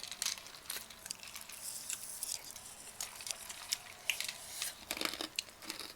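Close-miked eating sounds: a person chewing and biting into grilled chicken, with irregular small clicks and wet smacks.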